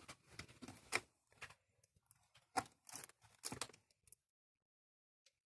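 Computer keyboard keys clacking in irregular bursts, faint, stopping about four seconds in.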